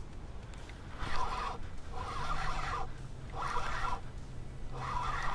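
Spinning reel whirring in four short bursts about a second apart as line is cranked in against a hooked fish.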